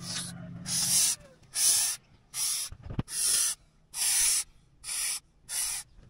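Sprayer hissing in about eight short bursts of roughly half a second each, spraying into a hole.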